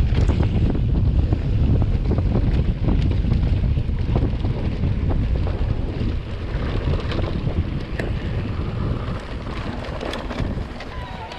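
Wind buffeting the microphone and tyres rumbling over a dirt trail while riding an electric mountain bike, with scattered clicks and rattles. It fades over the last few seconds as the bike slows.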